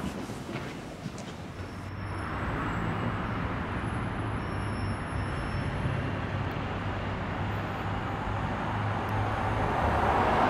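Minibus engine running as it drives along the road, with road noise, growing louder near the end as it approaches. Before it, about 2 s, a quieter room with a few faint knocks.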